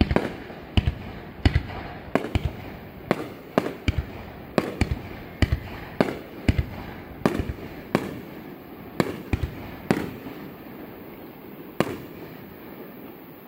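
Aerial fireworks shells bursting in a rapid barrage, about two bangs a second. The bangs thin out after about ten seconds, with one last bang near the end.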